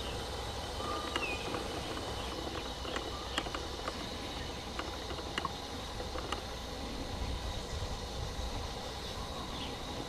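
Forest ambience: a steady insect drone with a low rumble underneath, a few brief bird-like chirps about a second in, and scattered sharp clicks.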